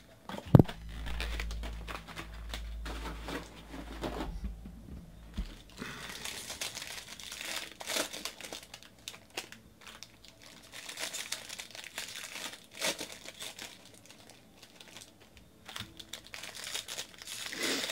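Foil wrappers of 2018 Bowman Draft baseball card packs crinkling and tearing as packs are pulled from the box and ripped open, with cards shuffled in the hands. There is a sharp knock about half a second in.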